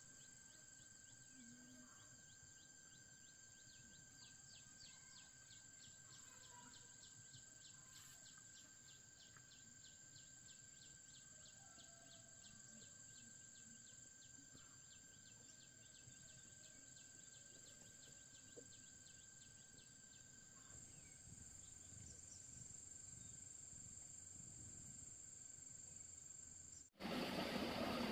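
Faint rural ambience of insects: a steady high buzz with a fast, even run of chirps for several seconds in the first half. About a second before the end it cuts abruptly to a much louder rushing hiss.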